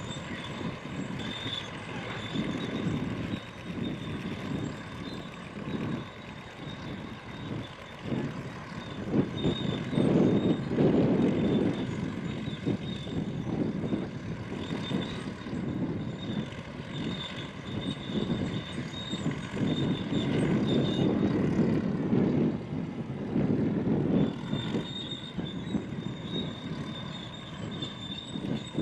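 Supermarine Spitfire Mk V's Rolls-Royce Merlin V12 engine flying an aerobatic display, its rumble rising and falling and swelling loudest twice, about a third and two thirds of the way through.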